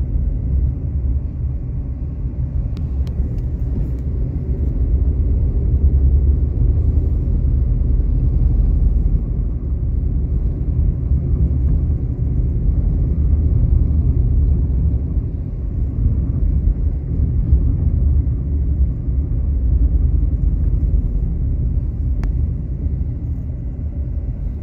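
Steady low rumble of riding in a moving vehicle along a street, swelling and easing slightly.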